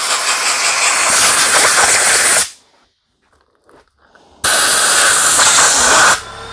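Compressed-air blow gun hissing into a driveshaft slip joint, blowing out crusted old grease, in two long blasts: the first stops about two and a half seconds in, the second starts about four and a half seconds in and cuts off near the end.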